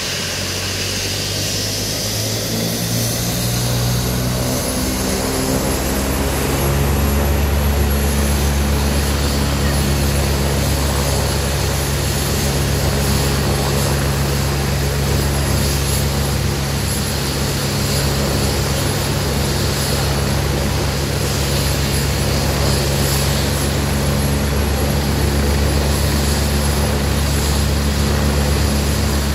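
Agusta A109 twin-engine helicopter running on the ground with its main rotor turning. Its engines spool up with a rising whine over the first several seconds, then settle into a steady run with an even, rapid rotor beat.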